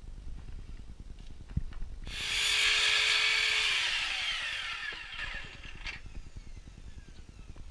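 Mitre saw cutting a grey plastic soil pipe: the saw starts about two seconds in and runs loud through the cut, then its whine falls away as the blade spins down after it is switched off.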